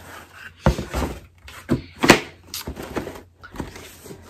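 Cardboard shoeboxes being handled: a sneaker set into its box and the box moved about, giving a series of knocks and thumps, the loudest about two seconds in.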